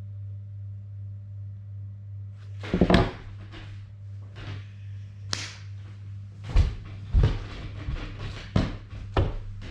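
Fingers tapping and handling a GoPro Hero 9 camera during its setup: about nine irregular light taps and knocks, starting about three seconds in, over a steady low hum.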